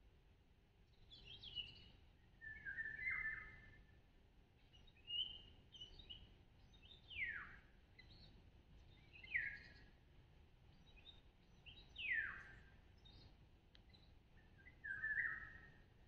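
Woodland songbirds singing in short phrases a couple of seconds apart, several of them a clear whistle sliding down in pitch.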